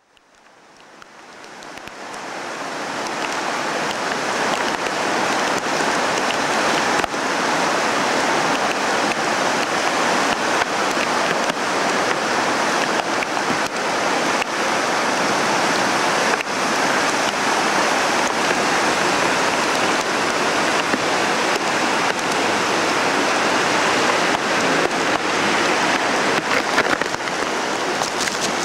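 River in flood, brown floodwater rushing and churning through a stone-walled channel and under a bridge: a steady noise of fast, turbulent water, fading in over the first two or three seconds.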